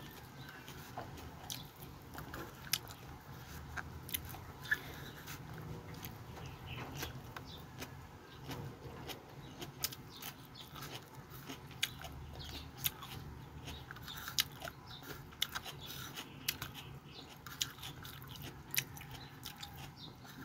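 A person chewing and crunching raw mustard greens dressed with tomato, close to the microphone: irregular short crunches and wet mouth clicks.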